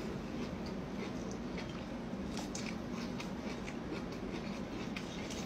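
Faint, scattered crackles and ticks of pickled bamboo shoots being peeled apart by hand and chewed, over a steady low hum.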